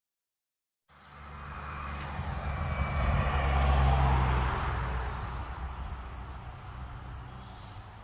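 After a second of silence, a car passes along the road: its tyre and engine noise swells to a peak about four seconds in, then fades away.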